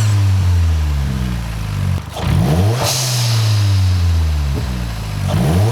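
Turbocharged Mitsubishi Colt CZT engine blipped twice, with the revs falling away after each blip. About three seconds in, on throttle lift, the hybrid blow-off valve with a homemade nozzle vents with a sharp hiss. The revs start climbing again near the end.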